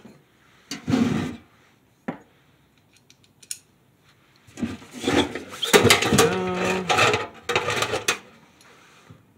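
Sheet-metal parts of an ammo-can tent stove kit being handled on a wooden workbench: a few separate knocks, then a longer run of metal clattering and scraping from about halfway through.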